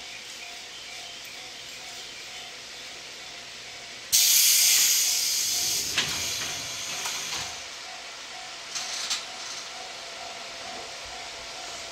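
Sudden loud hiss of compressed air released by an electric commuter train standing at a platform, starting about four seconds in and fading away over about two seconds, with a sharp clack at its tail; short hisses follow near nine seconds.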